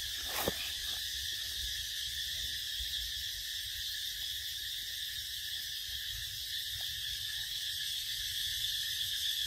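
Steady, high-pitched insect chorus: several unbroken tones layered together, holding level throughout. A short click comes about half a second in.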